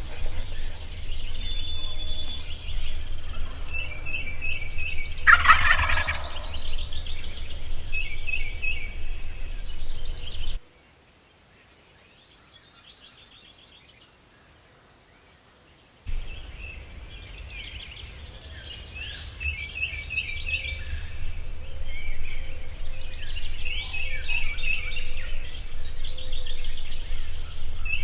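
A Rio Grande wild turkey tom gobbling loudly once, about five seconds in, with small birds chirping in short repeated phrases around it. The sound drops to near silence for a few seconds midway, then the birdsong returns over a low wind rumble on the microphone.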